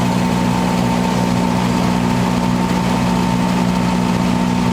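Steady mechanical hum of running machinery, holding several constant tones without change.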